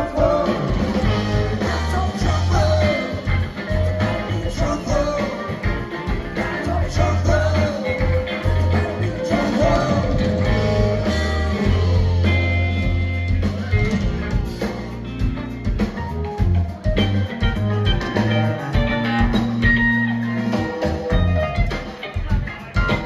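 Live blues-rock band playing loud through a PA, as heard from the crowd: electric guitars, bass guitar and drum kit, with singing and a harmonica played into a microphone.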